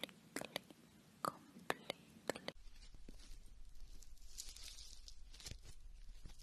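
Close-miked ASMR trigger sounds: a run of sharp, crisp clicks and crackles, about eight in the first two and a half seconds. Then softer crackling over a low hum, with a brief soft hiss about halfway through.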